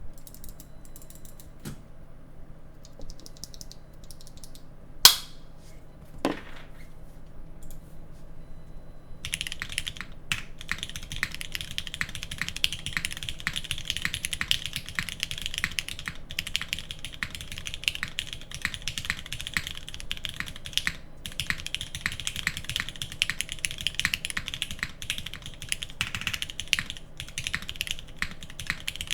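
Typing on a custom mechanical keyboard with Cherry MX Black linear switches, an aluminium plate and GMK keycaps. A few scattered keystrokes and two sharp, louder knocks about five and six seconds in, then fast, continuous typing from about nine seconds on.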